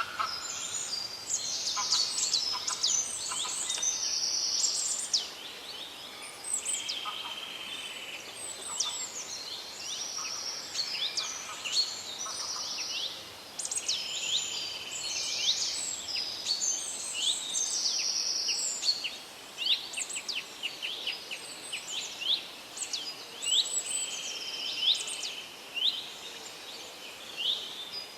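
Several songbirds singing and calling over one another: quick down-slurred chirps mixed with short buzzy trills, continuing without a break over a faint background hiss.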